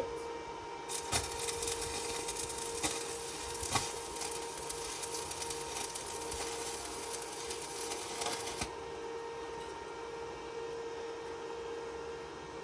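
Electric arc welding crackling and spitting, starting about a second in and cutting off abruptly after about eight seconds, over a steady electrical hum.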